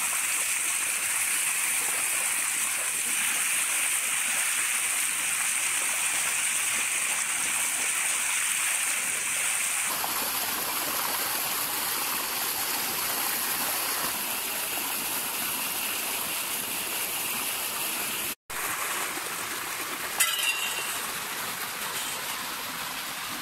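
Strong gush of water pouring from a concrete irrigation tank outlet and splashing onto stones and hands below, a steady rushing. The sound cuts out for an instant about three-quarters through. A couple of light clatters follow shortly after.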